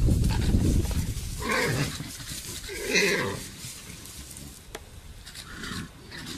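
A warthog squeals in distress, short pitched cries about a second and a half and three seconds in, with a weaker one near the end, as a lion holds it down by the head. Low growling and rumbling sit under the first second.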